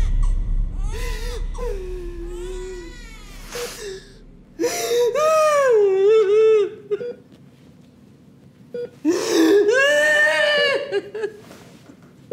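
A woman crying in distress, with drawn-out, wavering wails. The loudest wails come about halfway through and again near the end, with a few short sobbing cries between them.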